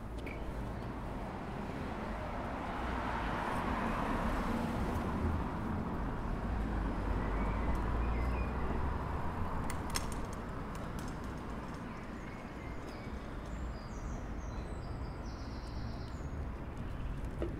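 Road traffic hum with a low rumble that swells and then eases off as a vehicle passes, with a few faint bird chirps and a couple of sharp clicks about ten seconds in.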